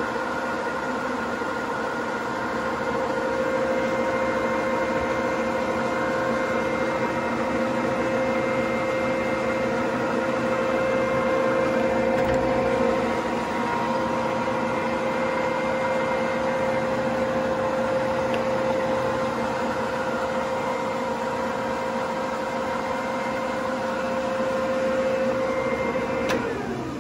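Dean Smith & Grace 1609 centre lathe running under power, a steady whine of its gears and drive. Right at the end it is switched off and the pitch falls as it runs down.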